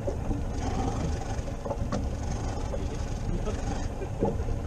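Steady low rumble of wind and sea around a small open boat, with faint voices now and then.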